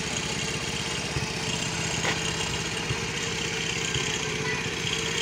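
Motorcycle engine idling steadily, a rapid even putter.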